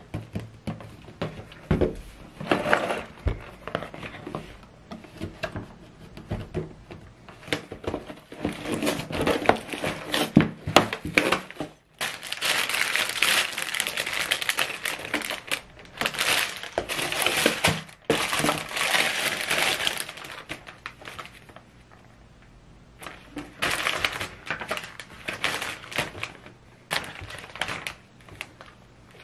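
Sealed plastic bags of LEGO pieces crinkling and rustling as they are lifted out of a cardboard box and handled, with small clicks and taps. The crinkling is loudest in long stretches through the middle.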